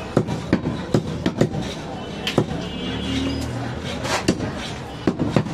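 Butcher's cleaver chopping into a goat leg on a wooden chopping block: sharp, irregular chops, quick in the first second and a half and then sparser, with background voices.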